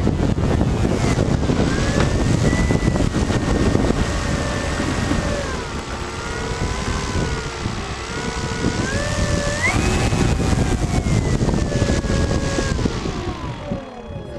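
RC Cub model airplane's motor and propeller whining in flight, heard from a camera on the plane with wind rushing over the microphone. The pitch wavers with the throttle, climbs sharply about ten seconds in, then slowly falls away.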